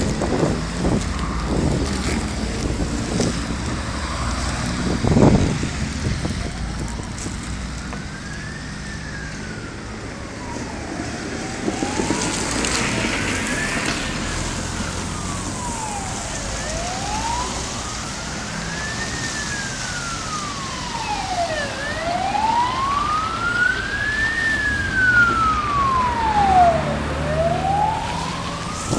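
Ambulance siren on a slow wail, its pitch rising and falling about every five seconds. It comes in faint about seven seconds in and grows louder over steady street traffic noise. A loud thump sounds about five seconds in.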